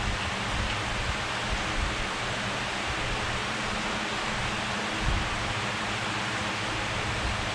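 Steady hissing background noise with uneven low rumbling underneath and a few soft bumps.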